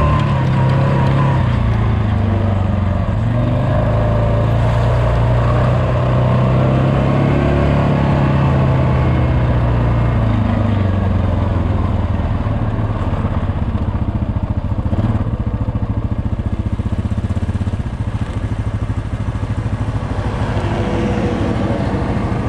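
Single-cylinder Yamaha ATV engine running under the rider, its pitch rising and falling with the throttle for the first ten seconds or so, then settling to a steadier, lower running as the machine slows and waits.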